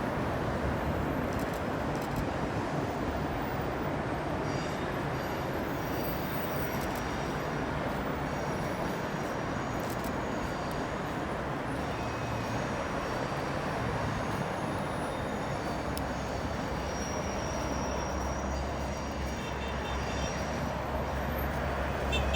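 Train running on the rails: a steady rolling noise of wheels on track, with a deeper rumble swelling in the last few seconds.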